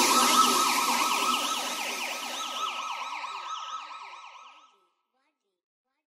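Police car siren in its fast yelp, the pitch rising and falling about three times a second, fading steadily until it stops after about four and a half seconds.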